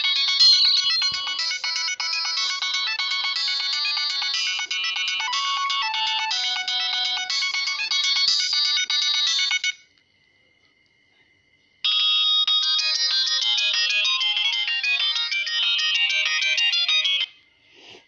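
Polyphonic MIDI ringtones from the Nokia 3510i set playing through a Nokia 2630 phone's loudspeaker. One tune stops at about ten seconds in, and after a pause of about two seconds another tune plays, then stops about a second before the end.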